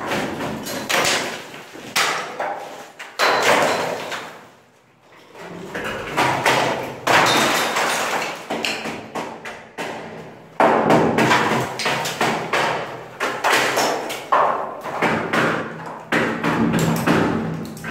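Corded rotary hammer chipping loose, water-damaged plaster and concrete off a ceiling: rapid rattling hammering in spells, with thuds and a short break about five seconds in.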